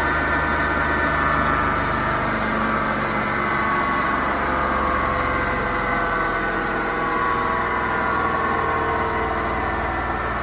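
Hoover VHD 9163 ZI washing machine spinning, a loud rumble and roar from its broken drum bearings, with a whine that slowly falls in pitch.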